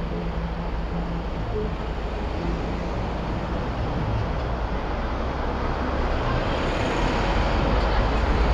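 Road traffic noise picked up by an action camera mounted on the outside of a car: a steady engine and tyre hum with passing vehicles. A low rumble grows louder from about six seconds in as the car pulls away.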